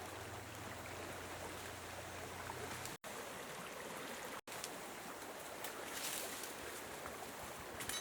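Steady rush of flowing water, with a low hum under it for the first three seconds. It is broken by two very short cuts to silence, about three and about four and a half seconds in.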